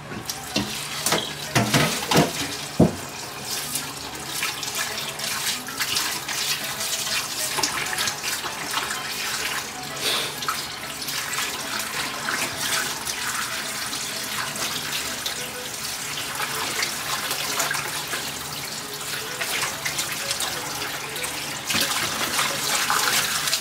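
Kitchen tap running into a sink, a steady rush of water with a few knocks and clatters in the first few seconds, then shut off at the end.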